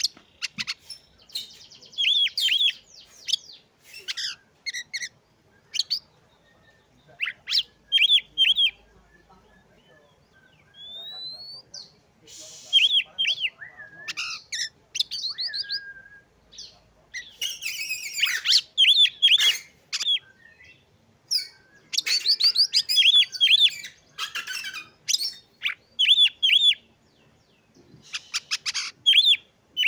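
Oriental magpie-robin in full song: loud, varied phrases of rapid chirps and whistled notes broken by short pauses, with a single rising whistle about eleven seconds in.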